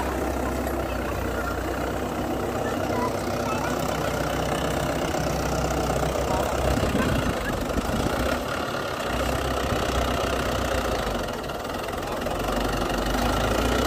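Mahindra 595 DI Turbo tractor's diesel engine running steadily as the tractor pulls a tined cultivator through ploughed soil, easing slightly in loudness near the end.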